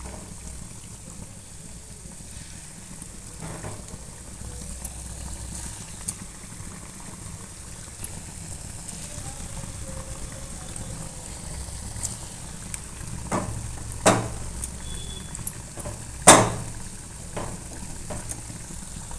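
Banana and wheat-flour batter balls deep-frying in hot oil in a kadai: a steady sizzle and bubbling. A few sharp clicks come about two-thirds of the way through, the loudest near the end.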